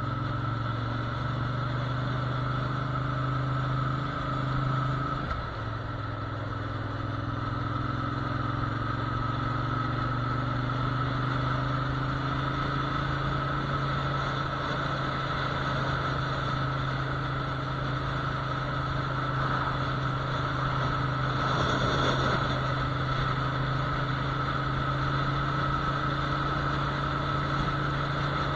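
Engine of a moving road vehicle running at a steady speed, with road and wind noise, heard from a camera mounted on the vehicle. It holds one even pitch throughout, with a brief swell of noise about three-quarters of the way through.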